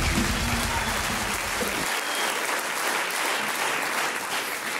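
Studio audience applauding, with the tail of guitar walk-on music dying out underneath in the first two seconds; the clapping fades toward the end.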